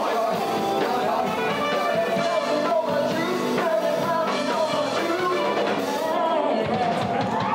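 Live band playing a song with a lead singer and electric guitar.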